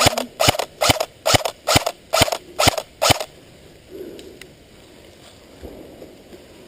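Airsoft rifle firing a quick string of single shots, about eight sharp clacks at a steady two to three per second, stopping about three seconds in.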